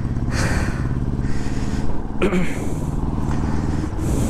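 Motorcycle engine running steadily at an even speed, with short rushes of hiss above it.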